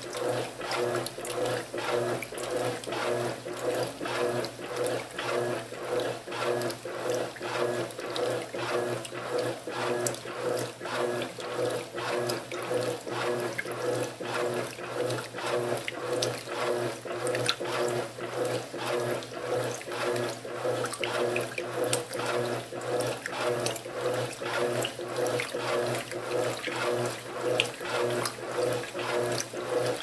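Electrolux Silent Control LAC12 top-load washer agitating a load of bedding and towels in its first rinse: water and wet laundry slosh in a steady, repeating back-and-forth rhythm.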